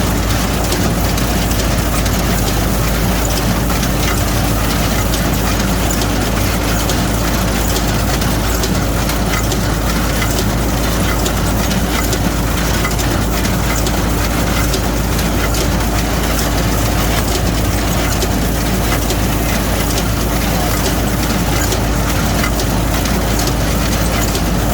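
Straw baler running steadily with the engine that drives it: a continuous machine drone with a fast, even clatter from the baling mechanism as it takes in and presses straw.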